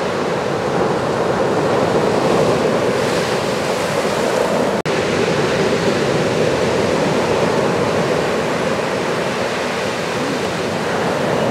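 Steady rushing wash of ocean waves breaking, with a momentary cut-out a little under halfway through.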